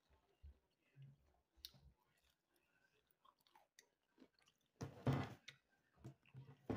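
A person chewing fried chicken with soft, quiet chewing sounds, with a brief louder noise about five seconds in.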